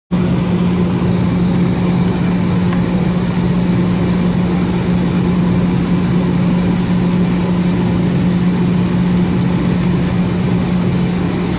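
Steady cabin noise inside an Airbus A319 taxiing on the ground, its jet engines at idle, with a steady low hum.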